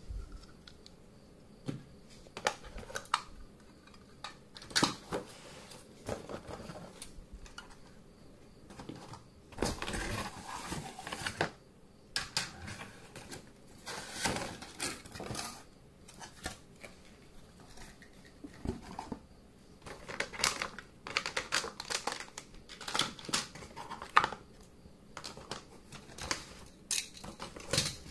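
Plastic Plarail toy train track pieces clacking and rattling together as they are lifted out of a cardboard box and stacked, with cardboard scraping. The clicks are irregular, with longer stretches of rattling and scraping around ten and fourteen seconds in.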